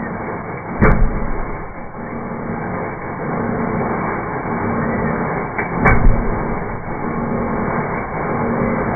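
Steady rumbling noise of a moving vehicle, with two sharp knocks about a second in and again near six seconds.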